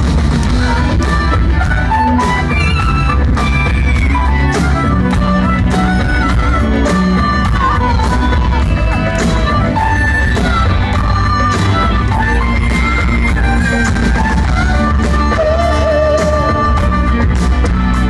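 Live rock band playing loud and steady: drum kit, electric guitars and keyboards through a club PA.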